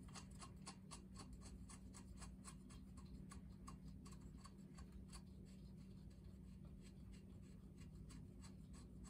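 Faint, regular clicking, about three or four clicks a second, as the propeller nut is spun off an outboard's propeller shaft by hand; the clicks thin out over the last few seconds.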